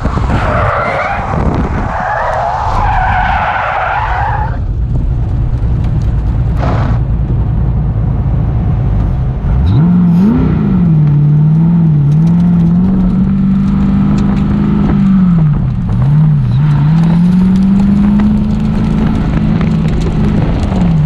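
Factory Five GTM's tyres squealing as the car spins out at high speed: a wavering screech for about four seconds, then a low tyre and wind rumble as it slides to a stop. About ten seconds in, the engine revs up sharply and then runs with its pitch rising and falling as the car drives on.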